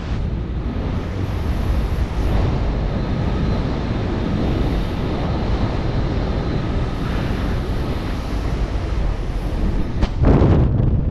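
Steady rushing wind buffeting the microphone, louder for a moment near the end and then cutting off suddenly.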